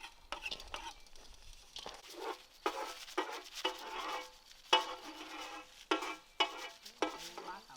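Metal spatula scraping and stirring food in a wok or frying pan: quieter at first, then rhythmic strokes about three a second with a metallic ring from about two seconds in.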